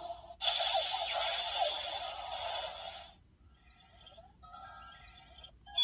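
Bandai DX Orb Ring toy playing electronic sound effects through its small speaker: a harsh, noisy effect for about three seconds, then fainter tones.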